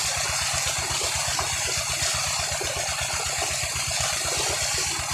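Tubewell water gushing from the outlet pipe and splashing onto a cot and the man lying on it. Underneath runs the pump's engine, a steady fast beat.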